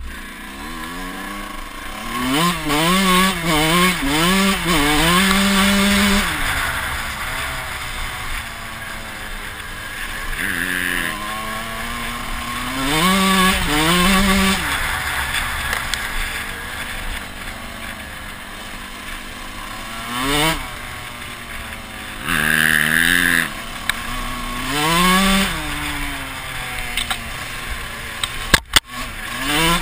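Kawasaki KX125 two-stroke dirt bike engine, its pitch climbing and falling again and again as it is throttled up and eased off, with wind rushing over the helmet camera's microphone. A few sharp knocks near the end.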